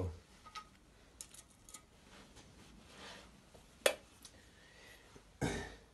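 Light metal clicks of valve parts being handled on an engine cylinder head while a valve is being removed, with one sharp click about four seconds in and a duller, louder knock about a second later.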